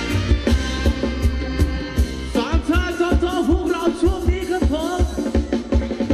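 Thai ramwong dance music played by a band, with a steady drum beat throughout; a little past two seconds in, a wavering sung or played melody line comes in over it for about three seconds.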